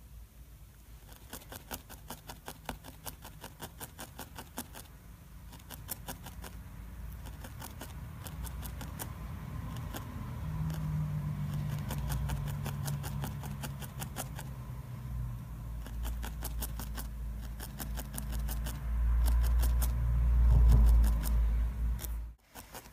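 A felting needle stabbing repeatedly into wool on its backing pad, a quick run of small ticks. A low rumble builds through the second half and is loudest near the end.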